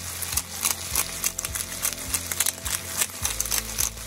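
Chicken gizzard silverskin and king oyster mushroom pieces sizzling in a hot iron skillet, with a dense, irregular crackle of spitting fat.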